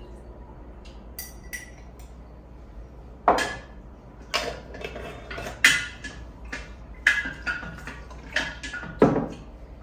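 Kitchenware clattering: dishes and utensils clinking and knocking together in a run of sharp knocks, about one a second in the second half.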